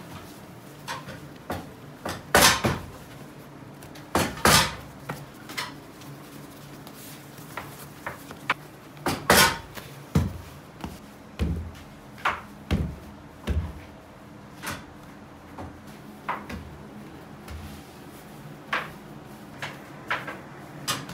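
Irregular thuds and slaps of large lumps of bread dough being cut, shaped into balls and set down on a floured work table, a few sharp knocks louder than the rest, over a low steady hum.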